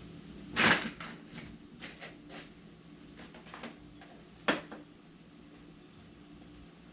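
Scattered handling sounds from work on the bike: a short rustle just after the start, a sharp click about four and a half seconds in, and a few faint taps between, over a low steady hum.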